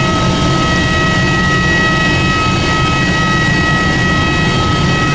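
Steady drone of a jet airliner's engines: an even rushing noise with several high whining tones held level throughout.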